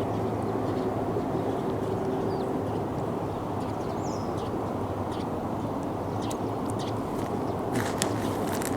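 Steady rush of flowing river water, with faint high bird chirps scattered through and a few light clicks near the end.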